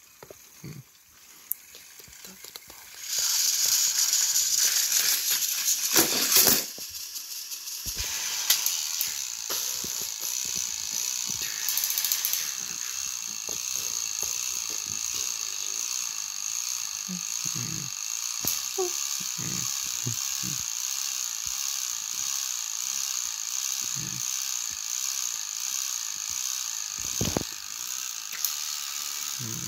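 Two battery-powered Thomas & Friends toy train engines pushing against each other on plastic track, their small electric motors whirring steadily, with scattered clicks. The motors start about three seconds in and are loudest for a few seconds. After a short break around seven seconds they run on steadily.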